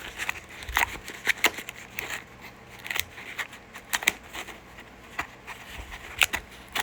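Plastic packaging being handled and pressed to snap shut: irregular sharp clicks and crinkling rustles, with the lid refusing to lock.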